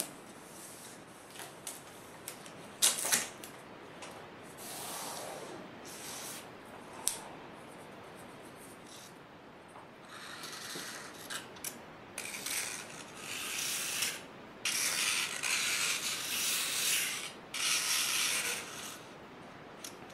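Blue painter's tape being pulled off the roll in several crackling strips and pressed down onto paper, with a few sharp taps and soft rubbing in the first half.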